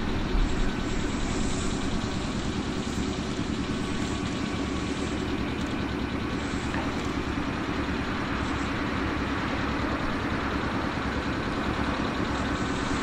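Steady hum and rumble of an electric train standing at the station with its onboard equipment running, at an even level throughout.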